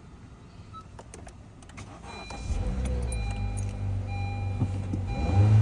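Honda Civic engine starting about two seconds in after a few light clicks, then idling steadily, with a short rise in revs near the end. It now starts because the blown main fuse has been replaced.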